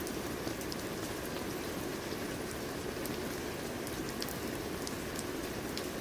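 Steady rain falling, a constant hiss with many small sharp drop ticks scattered through it.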